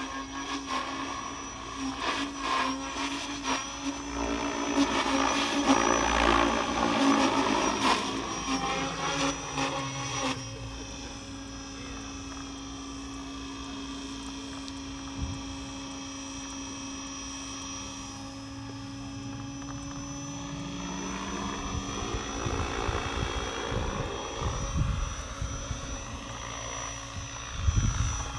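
Goblin Kraken 580 electric RC helicopter in flight, its brushless motor and rotor blades giving a steady hum with a thin high whine above it. The blade noise swells louder through the first ten seconds and again in the last several seconds as it is thrown through aerobatic manoeuvres.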